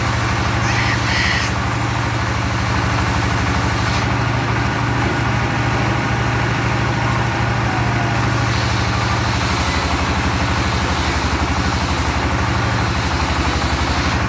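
Engine of a log sawmill running steadily at a constant speed, with a deep even hum.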